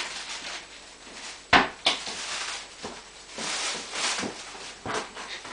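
Thin stream of water from a kitchen tap trickling into a sink, with one sharp loud knock about a second and a half in and a few softer clicks after it.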